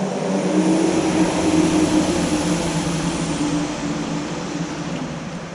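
A steady engine hum that swells about a second in and slowly fades, as of a passing motor vehicle.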